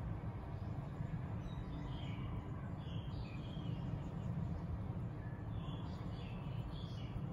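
Small birds chirping now and then over a steady low background rumble.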